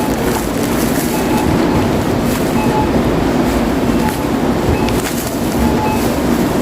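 Busy supermarket ambience: a steady rolling rattle with a murmur of voices, scattered clicks and a few short beeps.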